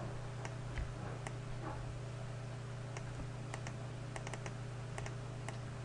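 Computer keyboard being typed on: irregular key clicks, bunching into a quicker run a little past the middle, over a steady low electrical hum.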